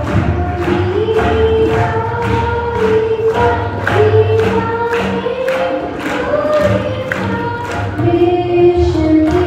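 Tabla keeping a steady rhythm, about two to three strokes a second, under singing voices that hold and glide between long notes.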